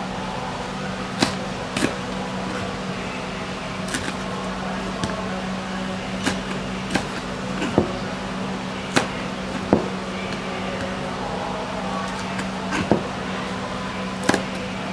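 Kitchen knife slicing red chilies on a plastic cutting board: sharp, irregular taps of the blade on the board, roughly one a second, over a steady low hum.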